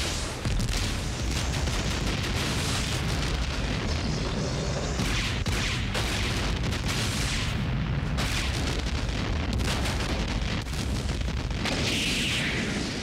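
Huge fuel explosion: black-powder lifters setting off containers of diesel and gasoline, a continuous loud rumble of fireballs. It dips briefly just after the start and again near the end, then surges back.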